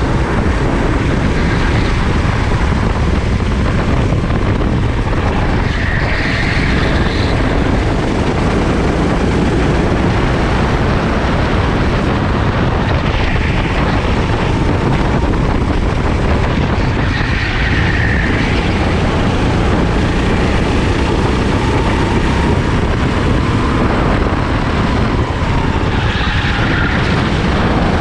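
Sodi racing kart's engine running hard at racing speed, its pitch rising and falling as the kart brakes and accelerates through corners, under a steady rush of wind on the onboard microphone.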